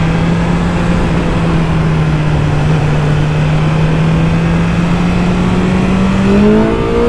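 BMW S1000R's inline-four engine running at a steady pitch at Autobahn speed under heavy wind rush, then rising in pitch as it accelerates near the end.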